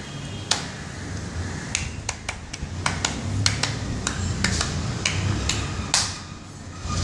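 A string of sharp clicks and taps at uneven intervals, about fifteen over several seconds, over a low background hum.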